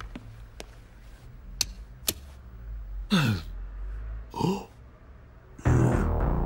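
A man's wordless vocal sounds: two short, falling sighs or hums with a few light clicks before them. A louder, steady sound comes in near the end.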